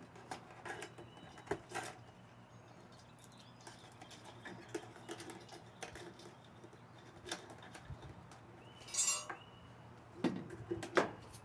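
Scattered light clicks and knocks from hardware and tools being handled while assembling an elliptical trainer, with a short rattling burst about nine seconds in and a few sharper knocks near the end.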